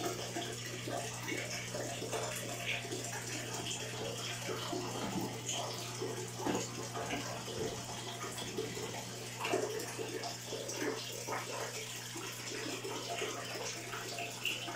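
Shallow water in a turtle's tub sloshing and splashing in small irregular splashes as a hand moves through it and lifts a snapping turtle out, over a steady low hum.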